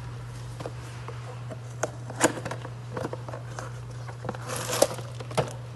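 Plastic packaging crinkling and rustling, with scattered sharp clicks and taps from handling, and a busier stretch of rustling about four and a half seconds in, over a steady low hum.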